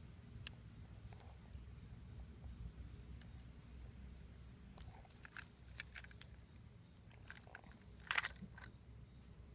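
Crickets trilling steadily in one continuous high-pitched note, with a few faint ticks and a short burst of handling noise about eight seconds in.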